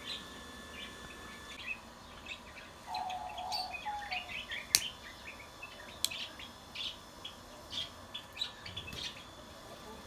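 Small aviary birds chirping, many short high chirps overlapping throughout, with one sharp click about halfway through.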